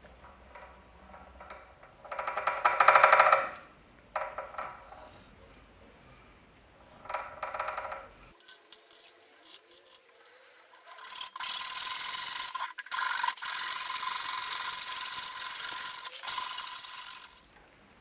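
Hand work on a small metal part: three short bursts of rubbing or filing, a run of light clicks, then a steady hissing noise with a faint tone for about six seconds near the end.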